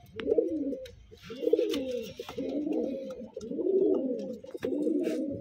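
Several domestic pigeons cooing, their low calls following and overlapping one another, with a few light clicks among them.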